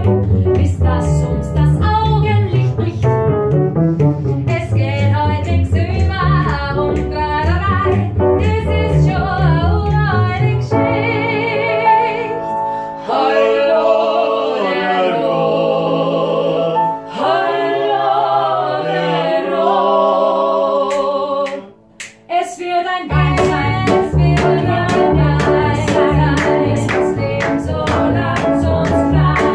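Voices singing with vibrato over instrumental accompaniment, in a rehearsal of a medley of Viennese wine songs and operetta tunes. The rhythmic bass accompaniment drops away about a third of the way in, leaving slower held singing, then comes back in with a steady beat after a short pause.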